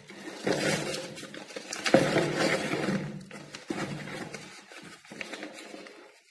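Plastic bubble wrap and paper packing rustling and crinkling by hand while medicine boxes are pulled out of a cardboard carton, as irregular crackles that fade toward the end.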